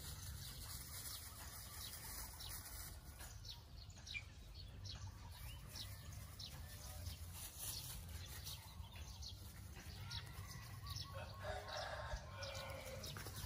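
Faint crackling and rustling of dry straw as a puppy and a young monkey scuffle over it, with a short pitched animal call about eleven seconds in.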